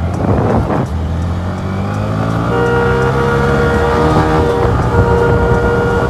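Motorcycle engine accelerating, its pitch rising steadily over a few seconds, with wind rush. About halfway in, a steady high tone joins, breaks off briefly, and resumes.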